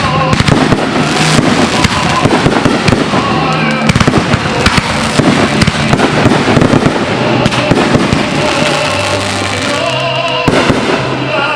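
Fireworks display: a dense run of overlapping bangs and crackles from aerial shells, with music playing underneath.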